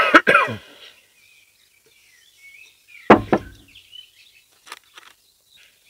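A spatula knocking against a stainless steel mixing bowl two or three times, the bowl ringing briefly, as thick bread dough is scraped out. About three seconds in, one heavier knock as the bowl is set down on the wooden table. Birds chirp faintly.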